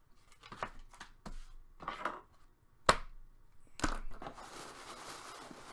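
Hands handling packaging: a few scattered light taps and rustles with one sharp click about three seconds in, then steady rustling of tissue paper as hands dig into a cardboard box.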